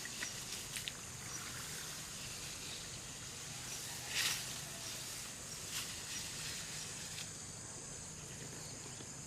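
Outdoor ambience with a steady, high, thin drone and an even hiss, broken by a few short rustling swishes, the loudest about four seconds in.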